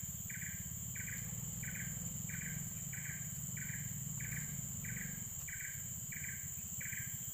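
Insects calling: a short chirp repeating evenly about one and a half times a second over a steady high drone, with a low steady rumble underneath.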